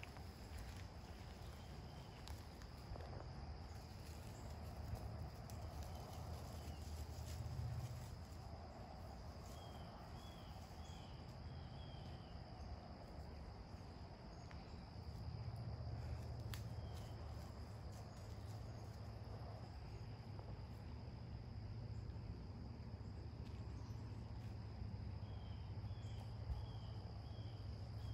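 Woodland ambience: a steady high insect trill, with a bird call of four or five quick chirps heard twice, about ten seconds in and again near the end, over a low rumble.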